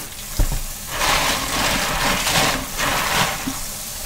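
Tap water running onto cockles in a plastic colander in a steel sink while a hand stirs and rubs the shells. A single thump about half a second in.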